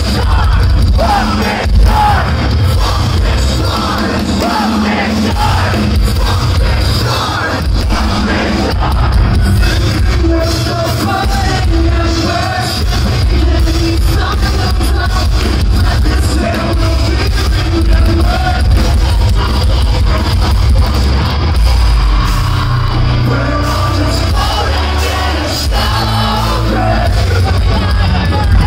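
A metalcore band playing live at full volume, with heavy distorted guitars, drums and bass under sung and shouted vocals, picked up from the crowd in a large hall.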